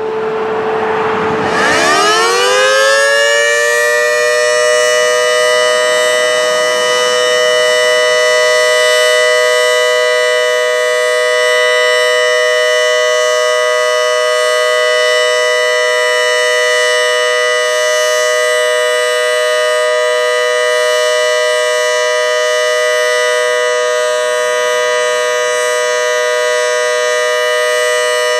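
Federal Signal Model 2T outdoor warning siren winding up, its two tones rising together over the first three or four seconds, then holding a steady, loud two-tone chord of about 491 and 620 Hz: the steady alert signal.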